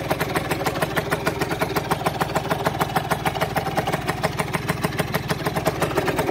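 Aprilia RS50's 50cc two-stroke single idling with a steady, rapid pulsing beat, while oil still spits out of its exhaust, which the owner takes for oil left in the exhaust.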